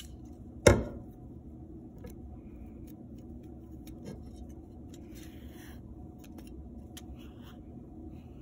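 A sharp knock a little under a second in as the clay loom frame is turned over against the wooden tabletop, followed by faint handling: soft rustling of yarn being drawn through the frame's holes and a few small clicks.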